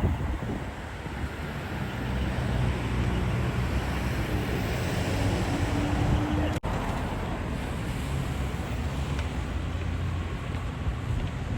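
Street traffic noise: vehicle engines running with a steady hum and road noise.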